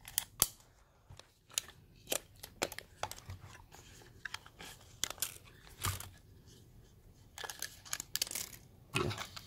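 Tape measures being handled: blades drawn out and their loose metal end hooks wiggled by hand, giving irregular small clicks and rattles, a sharper snap shortly after the start.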